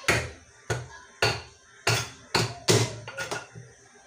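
A knife chopping hard into a pumpkin on a kitchen counter: about seven sharp, heavy chops at an uneven pace, roughly one every half second.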